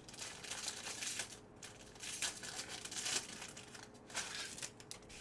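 Foil wrapper of a Bowman Draft Jumbo trading card pack being torn open and crinkled in the hands, in three bursts of crackling.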